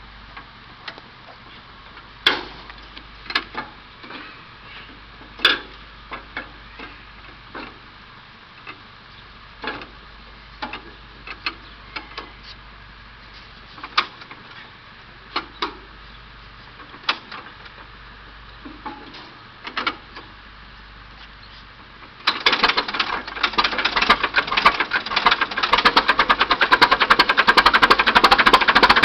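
Scattered clicks and knocks for about twenty seconds, then the old bulldozer's engine catches on a cold start and runs with a fast, rattling beat, growing louder toward the end.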